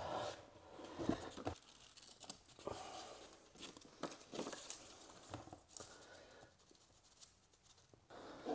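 Paper and double-sided tape being handled: quiet, irregular tearing and rustling with small clicks, as tape is pulled and paper pressed into place for a corner template.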